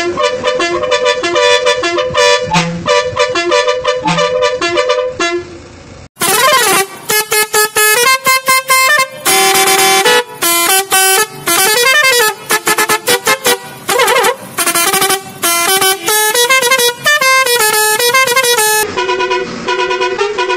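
Musical air horns of a Kerala tourist bus playing melodies. The first horn sounds short, repeated notes and fades about five seconds in. After a brief gap a different horn plays quick runs of notes with rising and wavering pitch sweeps, and near the end it changes back to a series of short, repeated notes.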